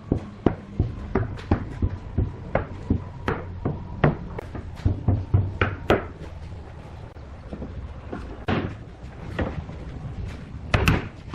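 A series of sharp knocks on wood, about two a second at first, then more scattered, with a loud double knock near the end.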